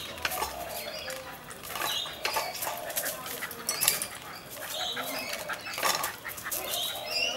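A fox terrier's dog noises as it shoves a small child's tricycle about on its hind legs, mixed with irregular knocks and rattles from the tricycle; the sharpest knocks come about four and six seconds in.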